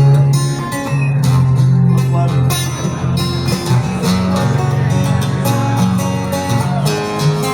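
Guitar picking and strumming the instrumental intro of a slow country ballad, with single notes and chords ringing out.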